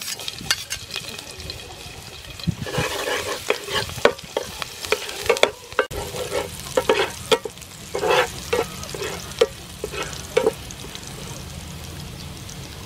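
Chopped garlic sizzling in hot soybean oil in a nonstick frying pan, with a metal spatula scraping and tapping against the pan as it is stirred. The stirring strokes stop about ten seconds in, leaving a steady sizzle.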